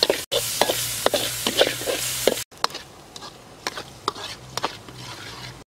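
Chili and garlic paste frying in oil in a steel wok, sizzling while a metal spatula stirs and scrapes against the pan. The sizzle is loud at first and cuts off suddenly about two and a half seconds in, leaving quieter spatula scrapes and taps on the wok.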